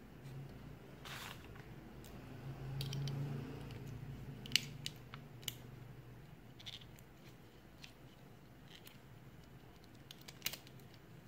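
Brake pads and their retaining pin being handled and fitted into a Shimano mechanical disc brake caliper: scattered small clicks and taps, the sharpest about four and a half seconds in, over a faint low hum.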